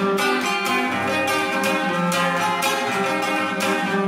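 Acoustic guitar strummed in a steady, even rhythm, its chords changing every second or so, with no singing.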